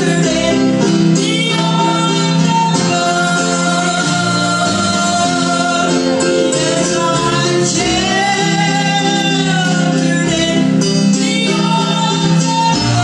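A woman singing a gospel song into a microphone over instrumental accompaniment, holding long notes that rise and fall gently.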